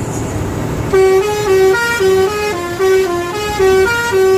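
Bus engine and road noise, then about a second in a bus's multi-note melody horn starts up, playing a quick tune of stepped notes that change pitch about every quarter second. This is the 'telolet' musical horn of Indonesian buses.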